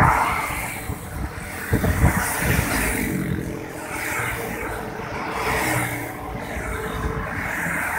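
Motor vehicle traffic: engines running and vehicles passing, as a steady rumble with a few louder surges near the start.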